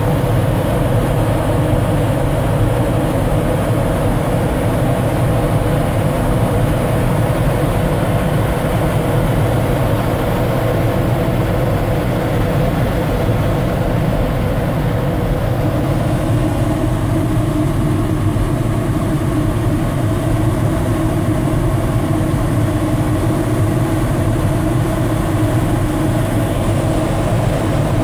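Steady rush of airflow over a glider's canopy, heard from inside the cockpit, with a slight change in tone about halfway through.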